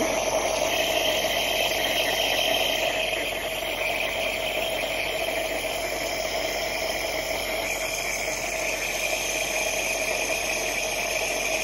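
Small electric compressor nebulizer running with a steady mechanical hum, driving medicine mist through a face mask held over a puppy's muzzle to loosen its chest phlegm.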